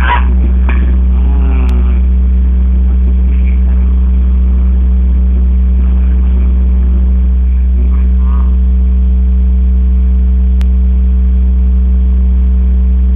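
A loud, steady low hum that holds the same pitch throughout.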